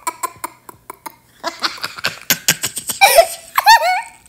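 A young child laughing: a run of short breathy bursts, then high-pitched giggles about three seconds in.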